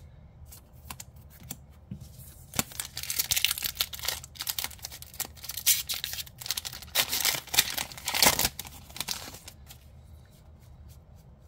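Foil booster-pack wrapper crinkling and tearing as it is ripped open by hand, in uneven bursts of rustling with the loudest tear about eight seconds in. A few soft clicks of card handling come before it and quieter handling of the cards after it.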